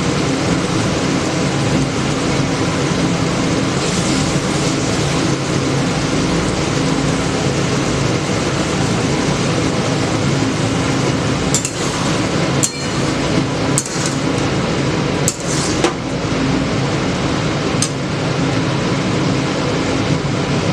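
A steady whooshing hum, like a kitchen exhaust fan or food frying, with a handful of sharp clinks of a utensil against a pan or dish in the second half.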